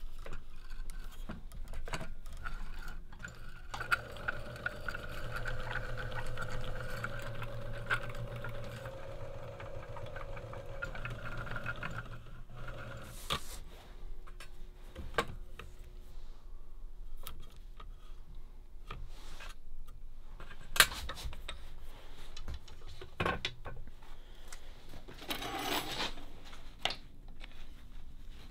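The small electric motor of a thread-wrapping jig turns a bamboo rod section, humming steadily for about eight seconds before it stops. Light clicks and knocks of handling come throughout, with a brief scrape near the end.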